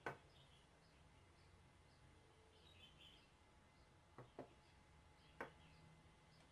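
Near silence, with a few light wooden knocks as an old hammer and a wooden handle blank are set down and shifted on a wooden bench: one at the start, two close together about four seconds in, and one more a second later. Faint bird chirps can be heard in the background.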